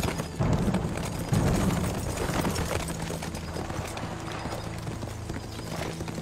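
Hoofbeats of several horses galloping over turf, loudest in the first two seconds, with a low steady drone underneath.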